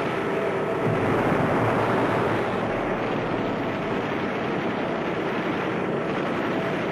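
Steady roar of a propeller aircraft engine mixed with rushing wind, swelling about a second in and easing slightly after two and a half seconds.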